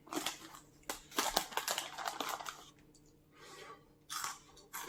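Crinkly plastic snack packaging being handled, crackling and crunching in irregular bursts.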